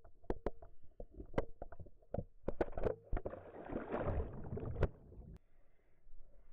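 A dock-diving dog heard through a GoPro on its back: sharp, irregular knocks and thumps as it runs, then about two and a half seconds in it hits the pool with a splash and turbulent rushing water. The water quietens to a lower churn as it swims near the end.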